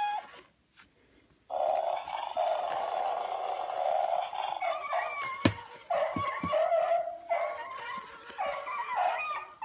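Gemmy animated mummy dog prop playing its recorded dog sounds: a long rasping snarl, then a string of short pitched cries. A sharp knock comes about halfway through.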